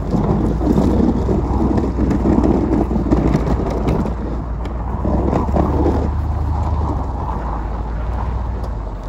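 1999 Chevy Suburban's engine running under load while its straight plow blade pushes and scrapes through fresh snow, a rough, steady scraping rumble. The scraping eases off about six seconds in as the engine keeps running.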